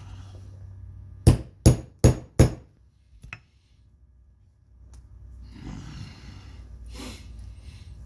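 A hammer strikes a metal snap tool four times in quick succession, about a third of a second apart, then gives one lighter tap a second later: snaps being worked on a leather vest.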